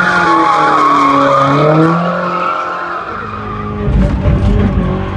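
Audi A4 1.8T engine revving up and down as the rear tyres squeal through donuts. About three seconds in, the sound switches to inside the cabin, where the engine is a steady low drone over heavy low rumbling.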